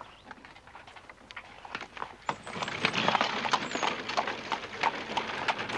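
Horse's hooves clopping on a gravel drive with the wheels of a two-wheeled horse-drawn trap crunching over the gravel, getting louder from about two seconds in as it comes closer.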